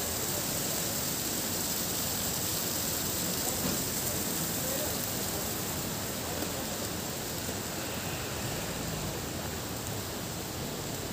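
Steady hiss of wet snow and sleet falling, with a couple of faint knocks.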